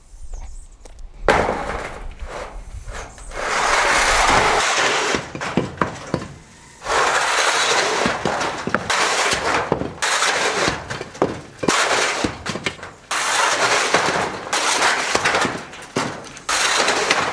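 Broken concrete and blocks being cleared off a concrete roof, in a series of crashes, scrapes and clatters with many sharp knocks.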